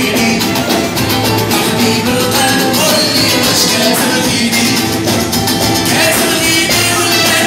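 Live band music: men singing into microphones over strummed acoustic guitars and percussion, with a steady driving beat.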